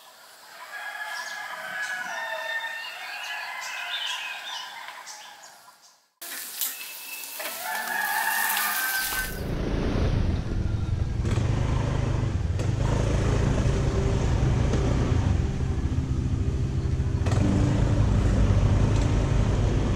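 Roosters crowing and chickens calling again and again for about the first nine seconds, with a brief break around six seconds in. After that a louder, steady low-pitched sound takes over.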